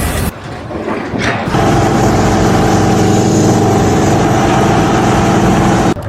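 A motor or engine running steadily with an even pitch, setting in about a second and a half in after a short break.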